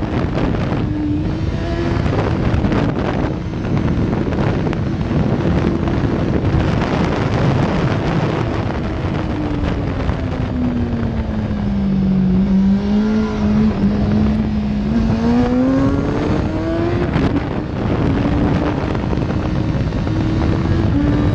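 2005 Kawasaki ZX-10R's inline-four engine heard from on board at speed, under heavy wind rush on the microphone. The revs sag about halfway through, then climb back up in a rising glide as the throttle opens.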